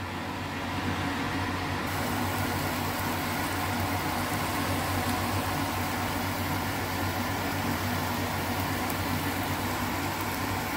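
Steady stovetop cooking noise from a wok of pork and preserved vegetable: an even hiss over a low hum, the hiss growing brighter about two seconds in.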